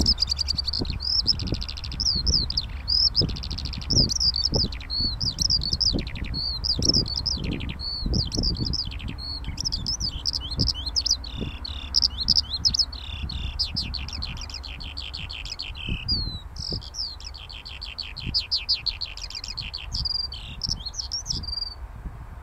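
Eurasian skylark singing from the ground: a long unbroken song of rapid high trills and quick up-and-down whistled notes that stops shortly before the end. A gusty low rumble runs underneath.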